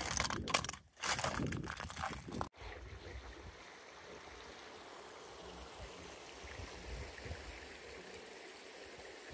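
Footsteps crunching on frosty gravel for about two and a half seconds, then, after a cut, a steady rush of water pouring through a concrete dyke sluice gate.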